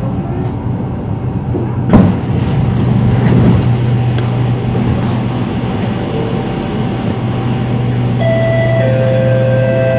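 Singapore MRT train standing at a platform: the carriage doors slide open with a sudden loud burst about two seconds in, over the steady hum of the carriage. A two-note chime sounds near the end.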